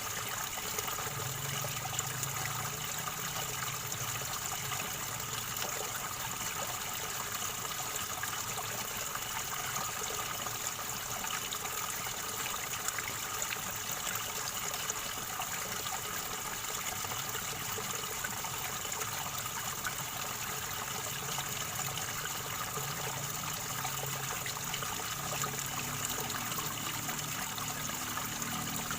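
River water gurgling and trickling over stones, a steady, unbroken flow.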